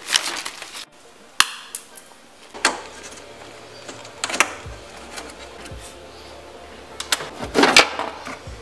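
A plastic bag crinkles briefly at the start, then a handful of sharp, scattered metallic clicks and clinks as a ring spanner works the fasteners of a car's cowl panel.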